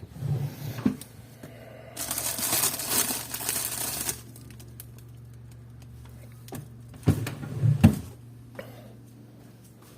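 A freshly sharpened Kai Shun damascus kitchen knife cutting, with a rasping stretch of about two seconds in the middle and a few knocks near the start and again around the last third. A low steady hum runs underneath.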